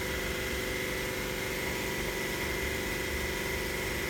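An engine idling steadily, a low even rumble with a constant high whine over it.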